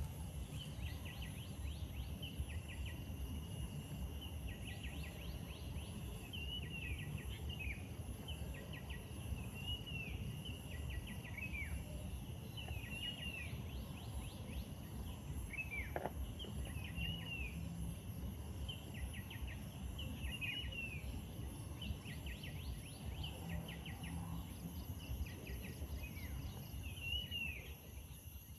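Riverside ambience: short falling bird chirps repeat in small groups every second or two, over a steady high insect hum and a low rumble. About halfway, one longer whistle falls steeply in pitch.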